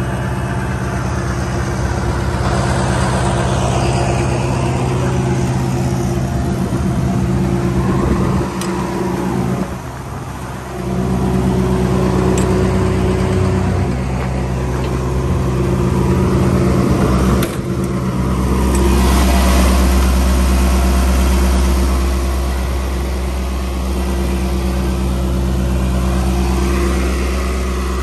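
John Deere diesel engine of a TSE cable puller running steadily, driving the machine's hydraulic pump. The low rumble grows deeper and louder about two-thirds of the way through.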